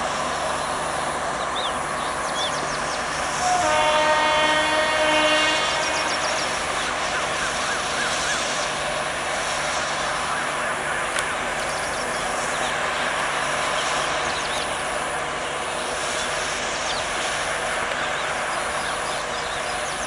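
Long passenger train rolling away on the track, a steady noise of wheels on rail. A single horn blast of about two seconds sounds about three and a half seconds in.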